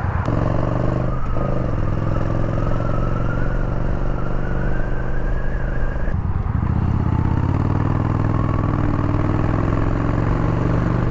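Yamaha Bolt's air-cooled V-twin pulling hard under acceleration, its pitch climbing steadily, dropping sharply at a gear change about six seconds in, then climbing again through the next gear.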